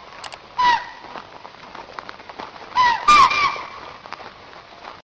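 Four short animal calls, each a brief falling note: one about half a second in, then three in quick succession around three seconds in, over a steady background hiss.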